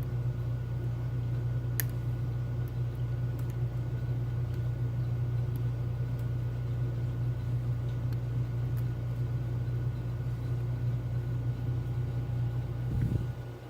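Steady low hum with a few faint, scattered clicks of a lock pick and tension wrench working the pins of a Medeco Keymark lock; the hum drops away near the end.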